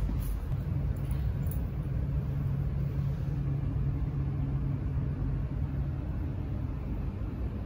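Steady low hum and rumble of a Trenitalia Blues train's onboard equipment, heard inside the passenger coach. The hum eases off about six seconds in.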